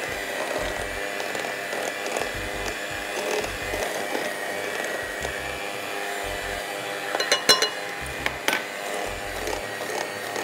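Electric hand mixer running steadily, beating butter and powdered sugar, with a few sharp clinks about seven and a half seconds in and another about a second later.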